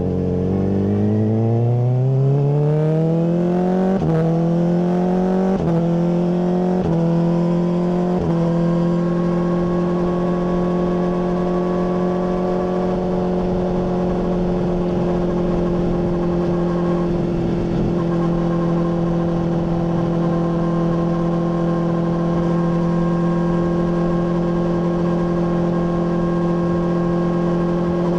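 Honda CBR600RR inline-four through a MIVV full exhaust, accelerating hard and shifting up four times in quick succession. Each shift gives a brief break in the rising engine note. It then settles into a steady cruise at constant revs.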